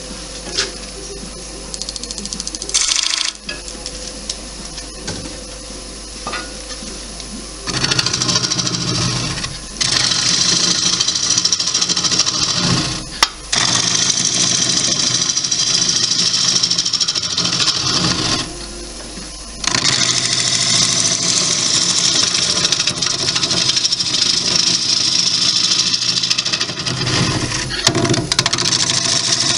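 Wood lathe spinning a wet cherry bowl blank while a gouge cuts into its face: a loud, rough, hissing cutting noise that starts several seconds in, breaks off briefly twice, and carries on. Before the cutting starts the lathe runs on its own with a steady hum.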